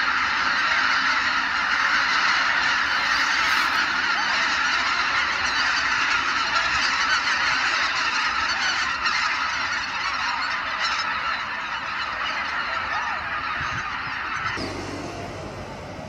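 A large flock of waterfowl calling continuously, with many overlapping calls forming a dense chorus. The chorus drops away sharply near the end, leaving a quieter background.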